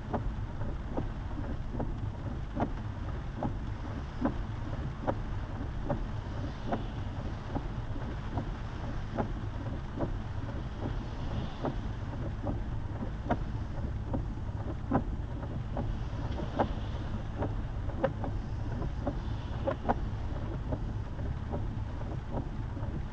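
Lifted Jeep driving at speed, heard from inside the cabin as a steady low road and engine rumble, with scattered sharp ticks about once or twice a second.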